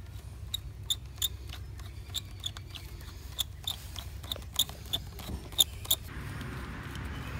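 Stainless worm-drive hose clamp being tightened with a flathead screwdriver around black poly pipe on a submersible well pump's outlet fitting: an irregular string of sharp metallic clicks as the screw turns. The clicks stop about six seconds in, over a steady low rumble.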